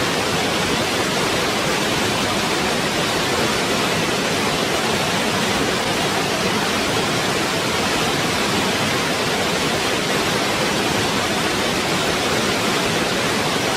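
Waterfall falling water: a steady, even rush with no breaks.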